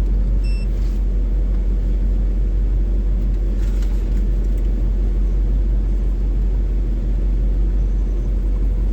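Vintage van's engine idling steadily while it warms up on a cold start: an even, low rumble. A short high beep sounds about half a second in.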